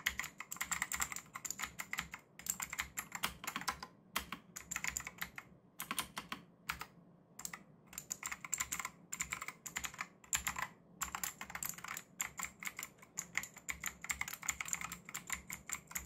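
Fast typing on an AJAZZ AK992 gasket-mounted mechanical keyboard with tactile green switches: a dense run of key clacks, broken by a few brief pauses.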